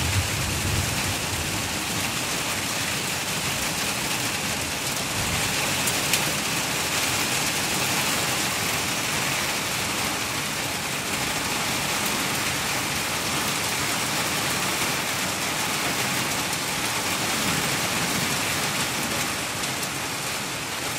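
Steady heavy rain falling, an even hiss with no let-up. A low rumble dies away in the first second.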